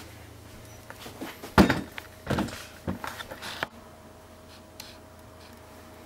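Several knocks and clatters of a plate and kitchenware being handled on a kitchen counter, the loudest about one and a half seconds in, with softened microwaved cabbage leaves being moved. A faint steady hum runs underneath.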